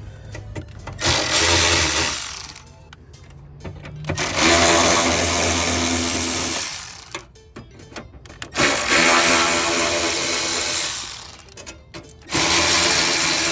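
Power drill running in four bursts of a couple of seconds each, spinning out the 10 mm bolts that hold the tray in the engine bay.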